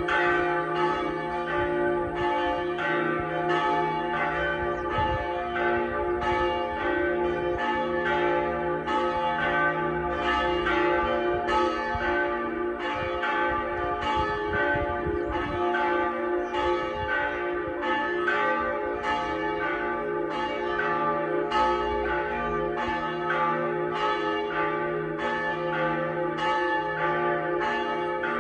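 Pershore Abbey's church tower bells ringing, struck one after another at an even pace with their tones ringing on and overlapping. Fewer than half of the abbey's bells are being rung.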